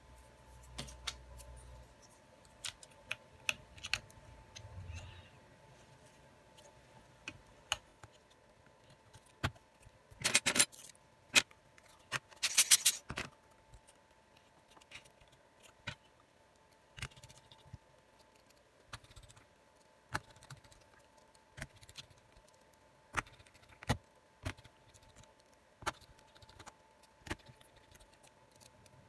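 Plastic inner frame of a Xiaomi Redmi 9A/9C being fitted over the phone's board and battery and pressed down by hand: scattered sharp clicks and taps, with two louder bursts of clattering scrape about ten and twelve seconds in. A faint steady tone sits underneath.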